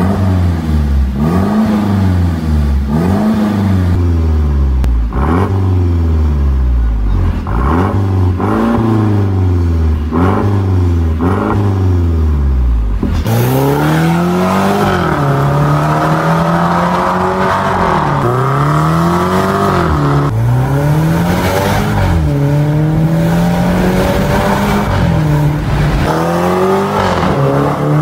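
Mercedes-Benz GLC300's 2.0-litre turbocharged four-cylinder through an Armytrix valve-controlled aftermarket exhaust, revved repeatedly while standing, each rev rising and falling about every second and a half. About halfway through, the SUV pulls away under hard acceleration, its pitch climbing and dropping back several times as it shifts up.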